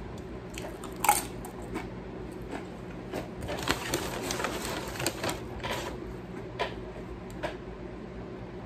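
Close-up eating sounds: a person chewing a bite of spicy chicken burrito, with a run of quick wet clicks and crinkles about three to six seconds in and a sharper click about a second in.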